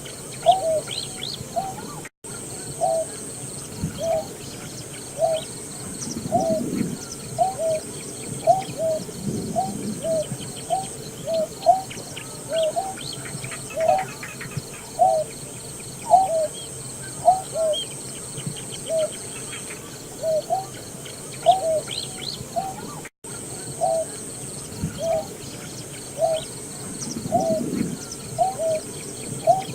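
Greater painted-snipe giving its low hooting call: a long, even series of short, soft, rising-then-falling notes, about three every two seconds, with two very short breaks in the sound.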